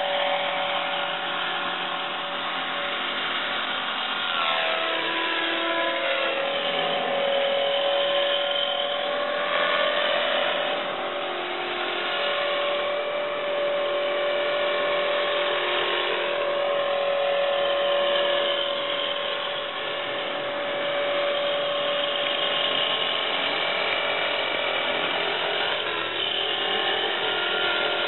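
450-size RC helicopter running in flight, its motor, gears and rotors giving a steady mechanical whine. The pitch dips and climbs again a few seconds in and shifts once more near the end as the throttle changes.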